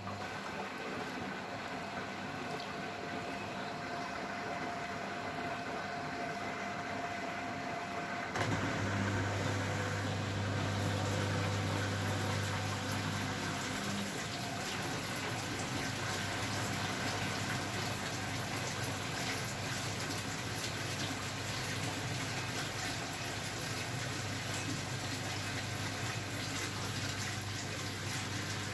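Beko WML 51211 EL+ washing machine running water through, a steady rush of water with a low hum. About eight seconds in the sound grows louder and the hum stronger.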